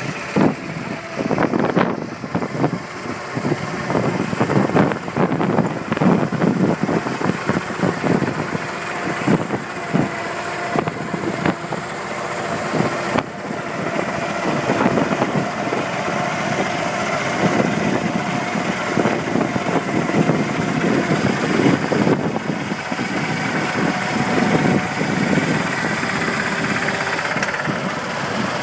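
Small engine of a BMB Plowmate garden tractor running while it ploughs, its level rising and falling unevenly.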